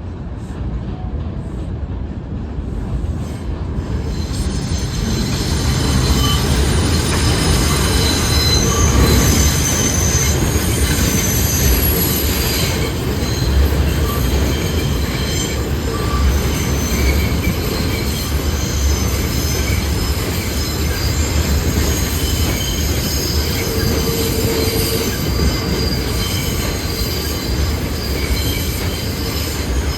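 New York City subway train moving through a station, its steel wheels squealing in high steady tones over a heavy rumble. The sound builds over the first few seconds, then stays loud.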